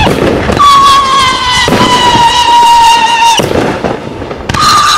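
Consumer fireworks cake firing shot after shot: sharp bangs every one to two seconds under a loud whistle that starts anew with a shot and slowly falls in pitch for about three seconds. The whistle breaks off for a moment near the end before a new shot starts it again.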